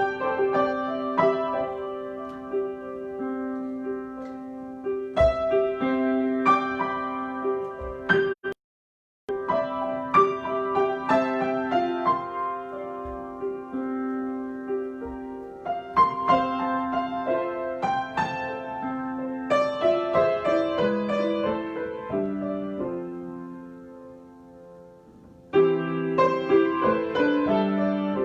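Solo piano improvisation: melody and chords over a repeatedly held low-middle note, with a sudden dead-silent break about eight and a half seconds in. It grows quieter near the end, then comes back with a loud chord.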